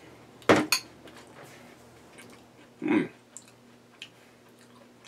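Metal fork clinking against a small glass bowl: two sharp clinks about half a second in, then a softer, duller knock about three seconds in, with a few faint ticks after.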